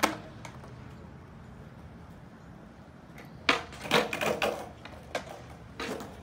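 Skateboard coming off a flat-bar grind onto concrete with a sharp clack, then its wheels rolling on smooth concrete. A run of clattering knocks comes a little past halfway, with another knock shortly after.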